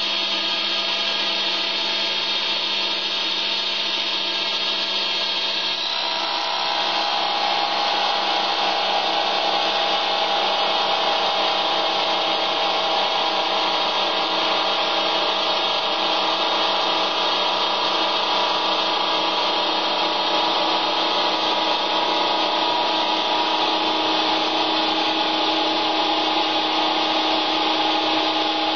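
Metal lathe spinning a small abrasive friction disc at about 1900 RPM, cutting hard steel plate: a loud, steady whine over a gritty hiss. A stronger middle tone joins about six seconds in.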